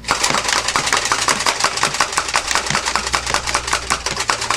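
Toy foam-dart blaster firing rapidly without a break: an even stream of sharp mechanical clacks, several a second.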